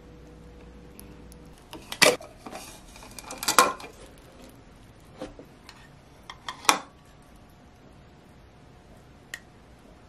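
A metal fork and a wooden spoon clinking and scraping against a glass storage jar while thick yogurt is scooped in. The sharp clinks come in clusters about two seconds in and around three and a half seconds, then singly near five and nearly seven seconds, with a last light tap near the end.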